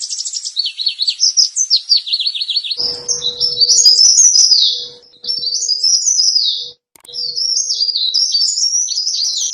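Cikrak daun leaf warbler song played as a bird lure: a quick run of high chirps, then about three seconds in, three bursts of busy, jumbled high twittering separated by short gaps. A faint steady hum runs under the later part.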